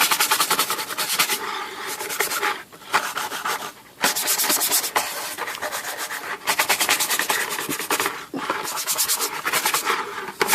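Stiff brush scrubbing a soapy typewriter casing cover in fast back-and-forth strokes, in several quick bouts with brief pauses between.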